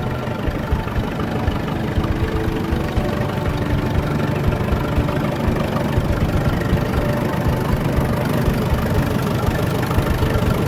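Tractor engine idling steadily, with a rapid, even firing beat.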